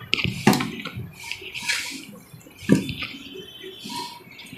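Hands kneading soft maida dough with freshly poured ghee, the dough bound with yogurt and no water: wet squishing with a few sharp smacks.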